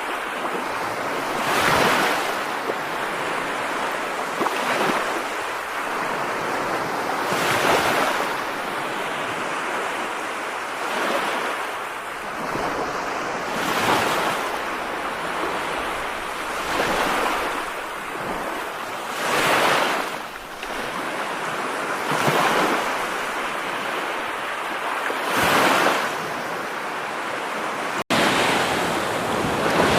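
Steady hiss of heavy rain, swelling in surges every two to three seconds. It cuts out for an instant near the end and comes back slightly louder and more even.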